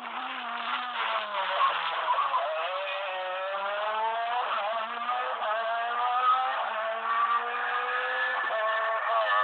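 Rally car engine revving hard under full acceleration, its pitch climbing steadily and then dropping sharply at a gear change about eight and a half seconds in before climbing again.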